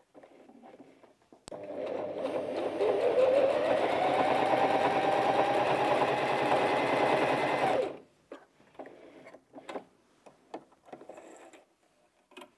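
Bernette 05 Academy sewing machine stitching through four layers of denim: it starts about a second and a half in, speeds up over the next two seconds, runs steadily and stops about eight seconds in. A few soft clicks follow.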